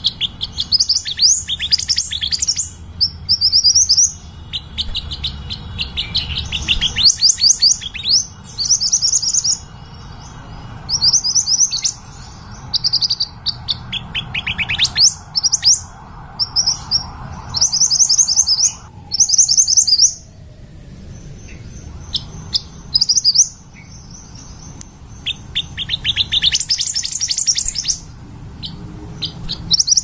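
Sepah hutan minivet calling: phrases of rapid, high chirping notes, each about a second long, repeated with short gaps. A low hum runs underneath.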